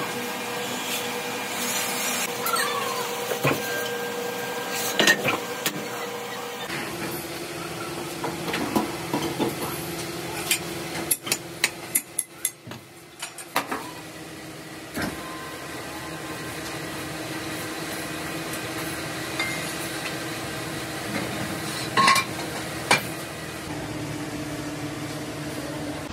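Motor-driven trough mixer running with a steady hum while churning damp moulding sand. Metal clanks and knocks are thickest around the middle, and one sharp clank comes near the end.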